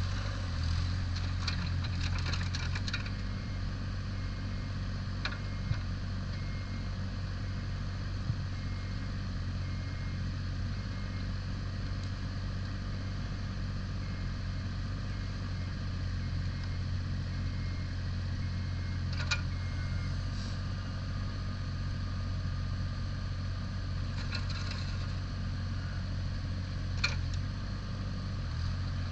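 Diesel engine of a 2014 JCB 8016 mini excavator running steadily. The engine is heavier for the first few seconds and again near the end, with a few sharp knocks along the way.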